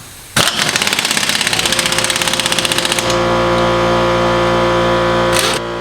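Impact wrench working lug nuts: a rapid hammering for about two and a half seconds, then a steady whir as it spins freely, easing off near the end.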